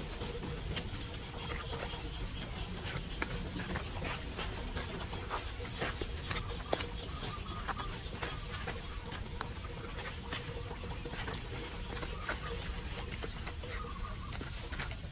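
Outdoor ambience on a rain-wet street: a steady low rumble with many small sharp ticks and taps scattered irregularly.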